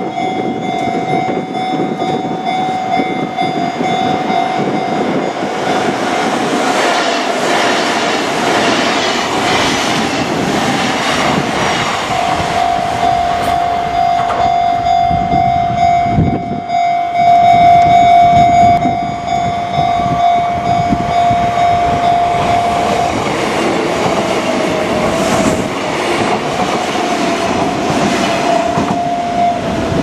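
Japanese level-crossing alarm bell ringing steadily as a Kintetsu Minami Osaka Line train runs past. The train's wheels rumble and clack over the rail joints, building a few seconds in and loudest just past the middle.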